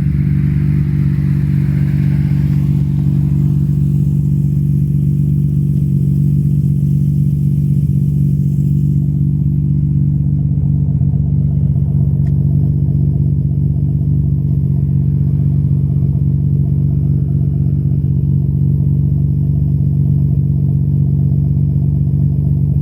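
Nissan R32 Skyline GT-R's RB26DETT twin-turbo straight-six running steadily with no change in speed. The owner reports that an abnormal noise from the car's fuel pump has grown worse.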